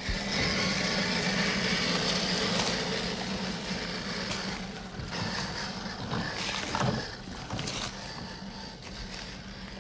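Electric motor and geared drivetrain of an Axial SCX10 III RC crawler running steadily, a low motor hum over a noisy haze, easing off after about three seconds.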